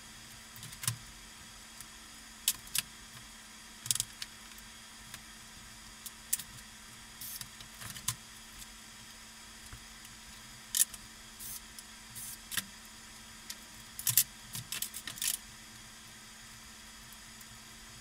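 Irregular metallic clicks, clinks and rattles of a Smith Corona electric typewriter's mechanism being handled and pried apart by hand, with a quick cluster of louder clanks near the end.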